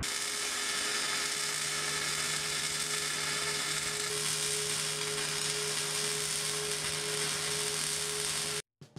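MIG welding arc laying a continuous weld on a steel truck frame: a steady crackling sizzle with a faint steady hum under it. It cuts off abruptly just before the end.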